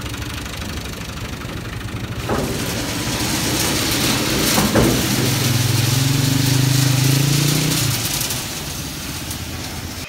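Tractor diesel engine running at idle, with two sharp metal clanks, about two and five seconds in, as steel rebar is pulled off the trolley. The engine note grows louder and steadier for a few seconds after the second clank, then eases back.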